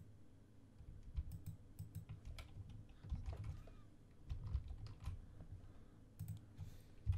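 Computer keyboard keys and mouse buttons clicking faintly and irregularly, with a soft low thump near the end.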